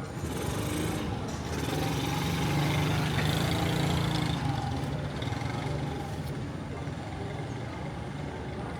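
A motor vehicle's engine running steadily, growing louder for a couple of seconds and then fading.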